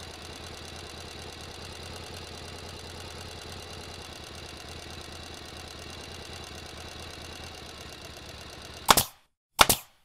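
Steady low hum with a faint hiss. Near the end come two sharp gunshot-like bangs about three quarters of a second apart, then the sound cuts to dead silence.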